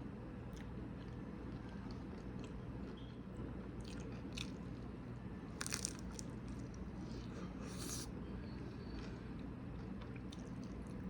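Someone eating, biting and chewing crunchy food, with a few crisp crunches about four and a half, six and eight seconds in.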